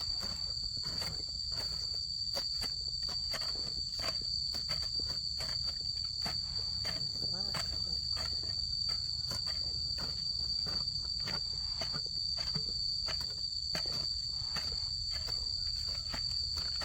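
Insects droning steadily at a high pitch, with frequent irregular short knocks and scrapes from hand weeding among the maize.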